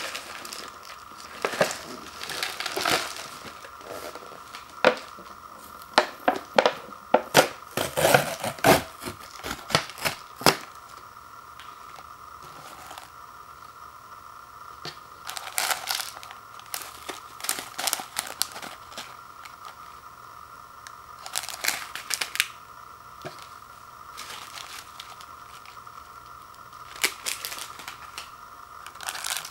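The lid of an instant ramen bowl being peeled off and the plastic seasoning packets inside crinkling as they are handled, in several bursts of crackling with pauses between, over a faint steady hum.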